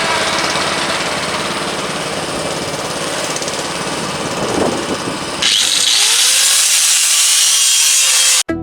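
Angle grinder cutting slots into a lawnmower's steel frame: a continuous harsh, hissing grind that turns brighter and harsher about five and a half seconds in, then cuts off abruptly near the end.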